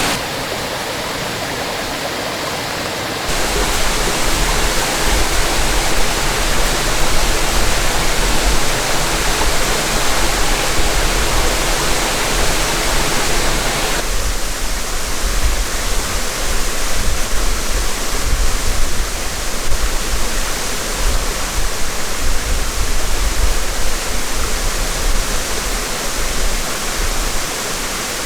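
Small stream's water rushing steadily, with a low rumble underneath from about three seconds in; the sound's character changes abruptly about three seconds in and again near the middle.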